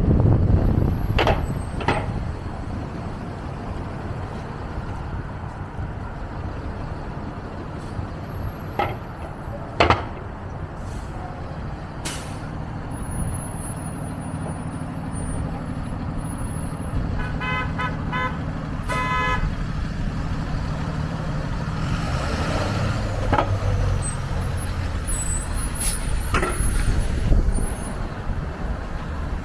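City street traffic: vehicle engines running under a steady low rumble, with a few sharp knocks and a quick run of short beeps about two-thirds of the way through.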